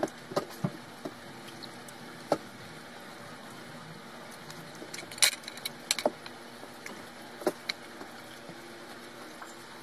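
Scattered light clinks and knocks of plates, cups and utensils on a dining table during a meal, over a steady faint background hum.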